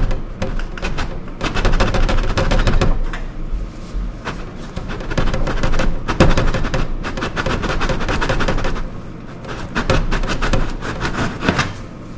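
Metal stove vent pipe rattling and clanking in rapid, irregular runs of knocks as it is shaken and twisted to seat it in its fitting.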